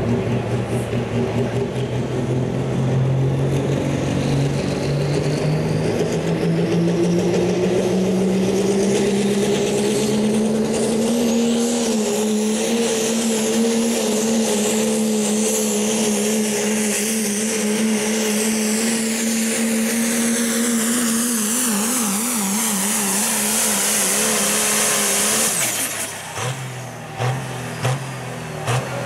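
Turbocharged Dodge Ram diesel pickup pulling a sled at full throttle: the engine climbs in pitch over the first dozen seconds, then holds steady under load with a high turbo whistle over it. About 25 seconds in, the throttle is cut as the pull ends, and the engine drops to a rough idle.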